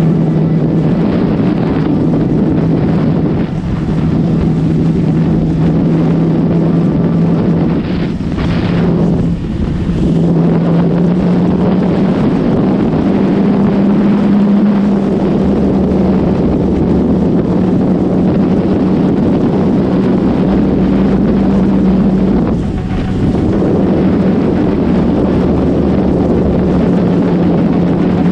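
Suzuki GSX-R1000's inline-four engine with an Akrapovic full exhaust, running steadily while riding, with wind noise on the microphone. The engine note shifts pitch slightly and dips briefly a few times.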